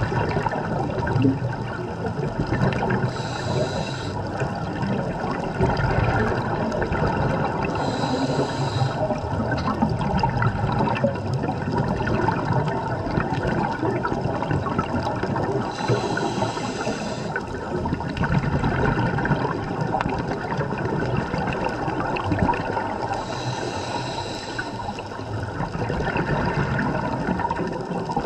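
Scuba diver breathing through a regulator underwater: a steady rush of bubbling water, with a brief higher hiss that comes back four times, about every seven to eight seconds.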